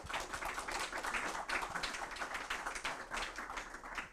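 Audience applause, many hands clapping at once, dying away near the end.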